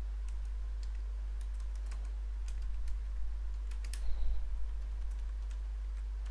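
Computer keyboard being typed on: sharp key clicks in short, uneven runs, with a few brief pauses, over a steady low hum.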